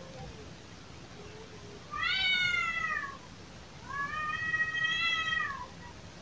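Domestic cat courtship yowls: two long, drawn-out wailing meows. The first, about two seconds in, rises and then falls; the second, a second later, is longer, held level and then falling.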